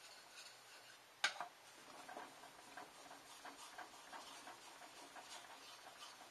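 A knife blade clicking down sharply on a whetstone about a second in, then short sharpening strokes of a makiri knife's edge across the wet stone, heard as a run of small scraping ticks, a few a second.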